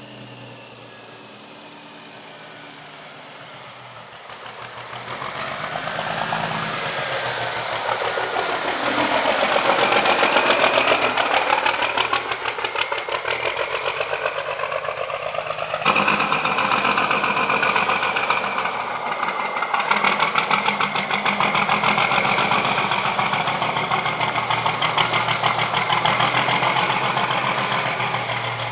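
A 1975 Dodge Big Horn truck's Cummins KTA600 diesel engine approaching. It is faint at first and grows loud from about five seconds in as the truck nears. Its pitch rises and falls with the throttle, then it runs loud and steady as the truck pulls in.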